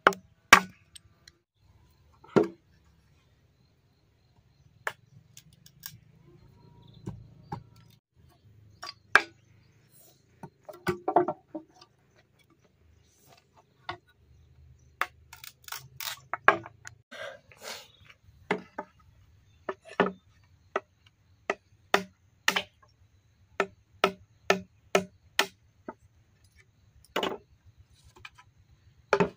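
Machete blade chopping and splitting bamboo: a long run of sharp, irregularly spaced knocks, sometimes several in quick succession.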